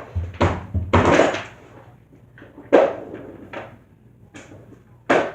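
Skateboard rolling and clattering: a low rumble with knocks through the first second and a half, then single sharp knocks near three seconds and just before the end.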